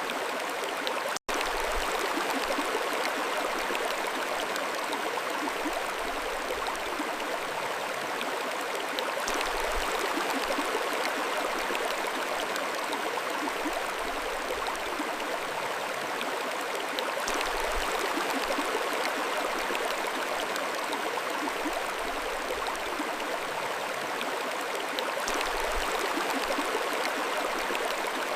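Mountain stream flowing steadily, an even rush of water. There is a momentary dropout about a second in.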